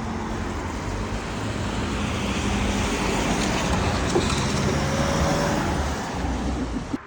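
Class 170 Turbostar diesel multiple unit passing, a steady rumble of engine and train noise that builds to its loudest about four to five seconds in and then eases, cutting off abruptly at the very end.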